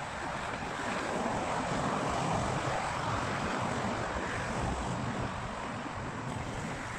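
Car traffic rushing past on the roadway alongside, a steady noise of tyres and engines that swells a little about a second in as cars go by, with wind on the microphone.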